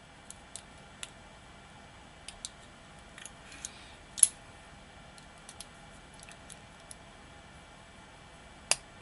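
Scattered small metal clicks and taps of a tool working at the retaining clip on the back of a lock cylinder, with a sharper click about four seconds in and another near the end.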